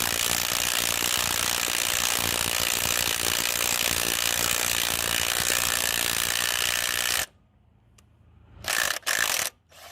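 Ratchet tool clicking rapidly and continuously for about seven seconds, then stopping suddenly; a couple of short clatters follow near the end.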